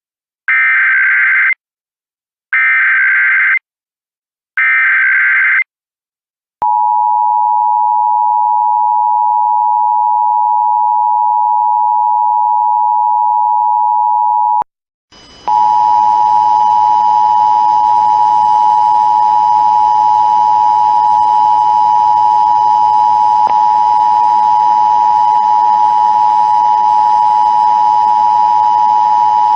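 Emergency Alert System tones: three one-second squawks of SAME digital header data, then the steady two-tone 853/960 Hz attention signal for about eight seconds. After a brief break about halfway through, the attention signal sounds again over a faint hiss.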